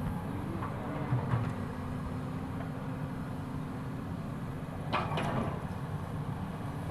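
Caterpillar 320D excavator's diesel engine running steadily, with a sharp double metallic clank about five seconds in.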